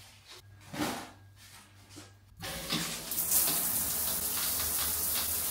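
Shower water starts running about two and a half seconds in, spraying steadily from a handheld shower head into a tiled stall, after a couple of quiet seconds.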